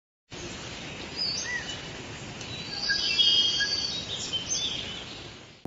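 Birds chirping and calling over a steady outdoor background hiss, the calls busiest about halfway through, with everything fading out near the end.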